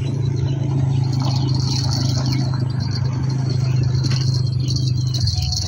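Diesel engine of an excavator running steadily with a low hum, which drops and changes a little about five seconds in.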